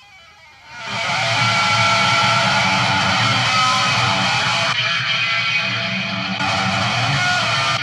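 Electric guitar strumming, swelling in over the first second and then loud and steady.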